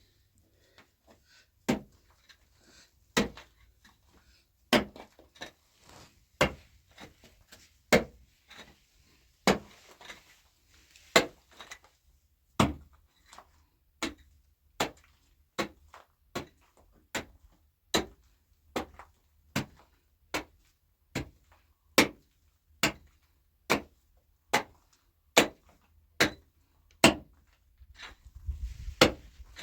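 Repeated chopping blows of a hand tool: single sharp strikes about every second and a half, quickening to a little more than one a second about halfway through, then stopping shortly before the end.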